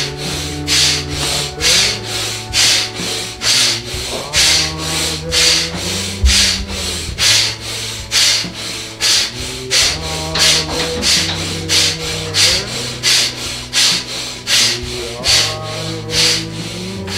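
Forceful, rapid rhythmic breathing through the nose and mouth, about two sharp puffs of air a second, during a dynamic breathwork exercise. Beneath it, background music holds sustained low notes that change every few seconds.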